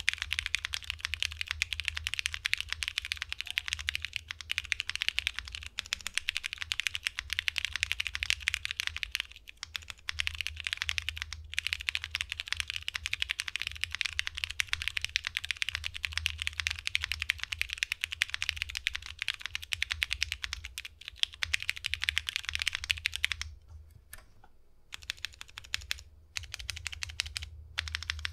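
Steady, fast typing on a Ciel60 60% mechanical keyboard with diamond-polished Cherry MX Brown (GHv4) tactile switches on a polycarbonate plate, O-ring mounted, with PBT keycaps: a dense patter of key clacks. The typing stops for a couple of seconds near the end, then resumes.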